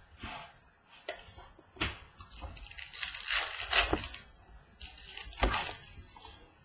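2016 Bowman's Best baseball cards being flipped through and set down on a table: swishing slides of card against card, with a few sharp taps.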